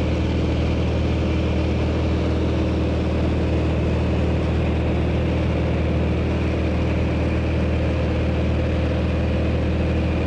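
Steady engine and propeller drone of a skydiving jump plane, heard from inside the cabin during the climb. It holds one unchanging pitch throughout.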